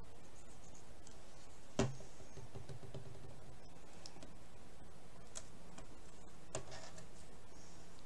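Hands handling small paper cut-out letters and a glue bottle on a cutting mat: a sharp click about two seconds in, a softer one near seven seconds and a few faint ticks, over steady background noise.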